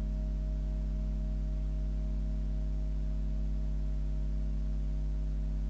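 Steady ambient drone music: several low tones held without change.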